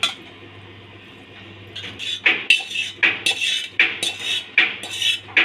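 Stainless steel pot and utensil scraping and clinking as cooked noodles are emptied out onto a steel plate. There is a single clink at the start, then, from about two seconds in, a run of quick scraping strokes, roughly two a second.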